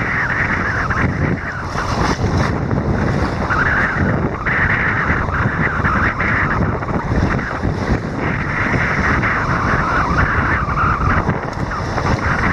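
North Sea surf washing and breaking right around a camera held at water level, the hiss of the water swelling every few seconds, with wind buffeting the microphone.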